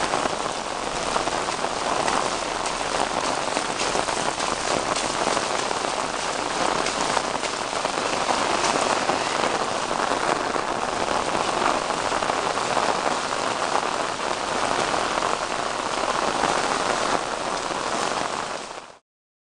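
Rain falling steadily, a dense even hiss that cuts off abruptly just before the end.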